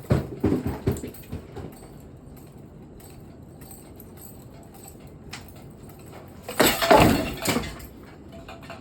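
Damaged 1994 Hunter Piedmont ceiling fan running and wobbling, with bursts of clattering knocks near the start and a louder burst about seven seconds in, over a steady low running noise.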